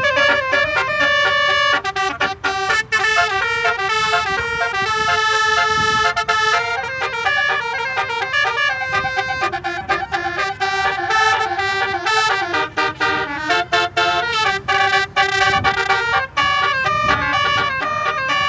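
Basuri musical horn on a vehicle playing a melody. Several tones sound at once and step from note to note without a break, with quicker short notes in places.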